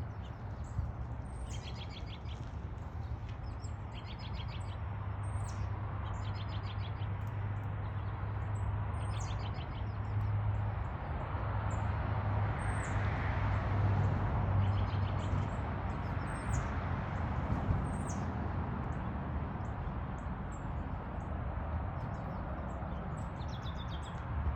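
Birds calling over and over: short high notes, many followed by a quick rattling trill, every second or two. Under them runs a steady low rumble that swells briefly about halfway through.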